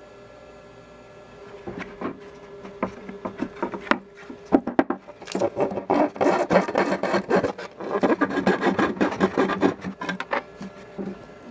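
Hand tool scraping and cutting along a routed groove in radiata pine, severing the thin wood left at the bottom of the cut to free the frame. The short scrapes start a second or two in, come thick and fast through the middle, and thin out near the end.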